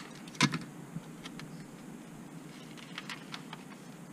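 A roll of tape and a paper template being handled by hand: a sharp click near the start and a louder one about half a second in, then a few faint ticks.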